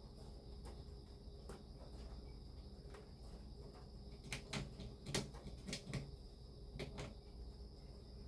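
Scattered light clicks and knocks, as of small objects being handled, bunching together about halfway through, over a faint steady high tone and low hum.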